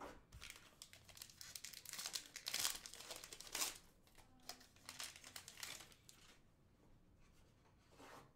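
Wrapper of a Panini Absolute Football retail card pack being torn open and crinkled by hand: a run of tearing and crinkling sounds, loudest in the first half, then fainter rustling as the cards are handled.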